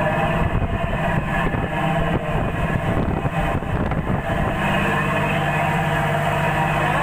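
Fishing boat's engine running steadily with an even low drone.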